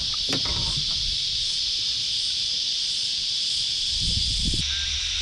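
Steady, continuous high buzzing of a cicada chorus, with a few light knocks near the start and around four seconds in.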